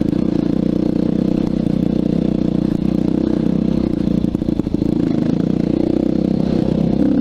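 Yamaha YZ dirt bike engine running at steady, even revs, heard up close from a helmet camera. A short run of clattering comes about four seconds in.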